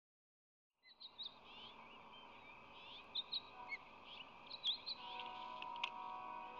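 Bird chirps, many short high notes and quick glides, starting about a second in over faint outdoor noise. About halfway through a steady hum with several even pitches joins in, and a sharp click sounds near the end.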